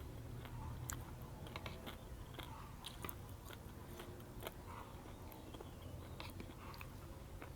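A person chewing and biting a spicy seafood papaya salad with squid and mussels close to the microphone, with scattered small clicks and crunches over a steady low hum.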